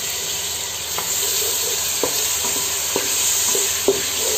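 Raw ground onion paste sizzling in hot oil in a non-stick pot, stirred with a wooden spoon. The spoon knocks against the pot about once a second.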